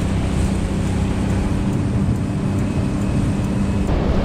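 Outboard motor running at speed as the boat runs across open water, a steady engine hum under loud rushing wind and water noise. The engine hum drops out about four seconds in while the rushing noise carries on.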